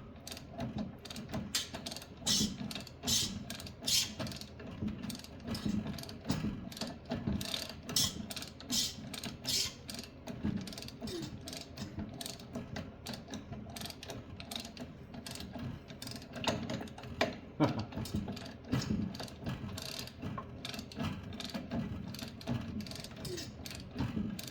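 Ratchet clicking over and over as the snowblower engine's crankshaft is turned by its nut, the engine now free after being stuck.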